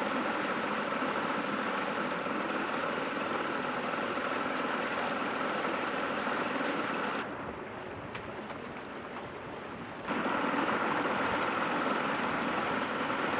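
Outboard motor running steadily at speed, pushing a small aluminium boat along, with the rush of the wake. About halfway through the sound suddenly turns duller and a little quieter for about three seconds, then comes back.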